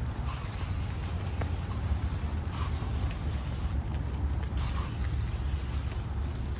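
Light rain pattering on the tree canopy with occasional drops, over a steady low rumble of distant city traffic.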